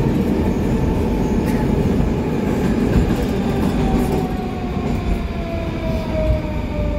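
Metro train's running rumble heard inside the car as it slows into a station. An electric motor whine falls steadily in pitch as the train brakes.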